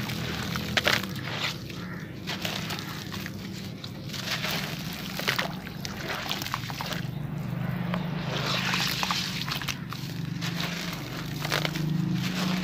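Wet sand-cement chunks crumbled and squeezed by hand in a tub of water: sloshing water with gritty crunching and many small crackles as crumbs break off and drop in.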